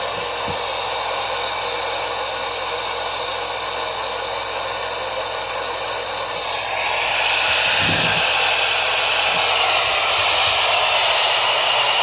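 Radio static: a steady hiss that grows louder and brighter about seven seconds in.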